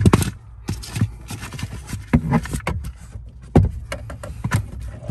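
Irregular clicks and knocks of hand work on the plastic parts behind a Jeep Wrangler's dashboard, over a low rumble.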